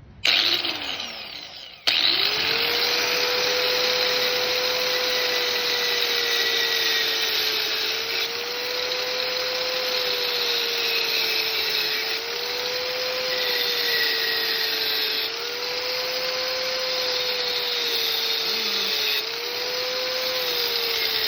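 Small electric power tool motor starting about two seconds in and running steadily with a whine. The pitch sags briefly several times as the tool is loaded.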